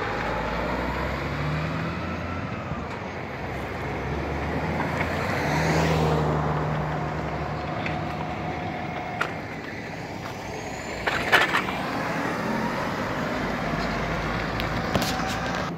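Heavy diesel trucks, a concrete mixer and then a dump truck, running slowly through a turn, their engine note rising and falling. A short, sharp clatter comes about eleven seconds in.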